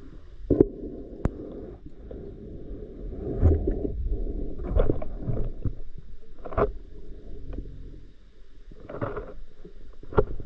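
Muffled underwater sound heard through a waterproof camera housing: a low rumble of moving water, with scattered knocks and clicks.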